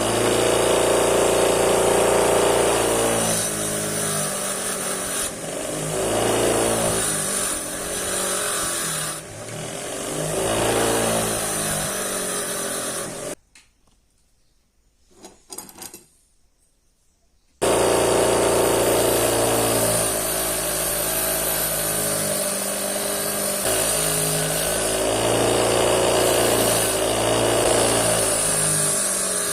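A power tool's motor running, its pitch dipping and recovering every second or two as it is loaded. It cuts out for about four seconds in the middle, then runs on.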